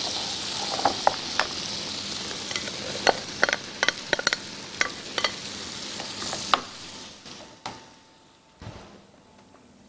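Melted butter, sugar, raisins and cinnamon sizzling in a frying pan while diced apple is tipped in from a glass bowl and stirred with a wooden spoon, with many sharp clacks of the pieces and the spoon. The sizzling fades about six and a half seconds in, leaving a few scattered clicks.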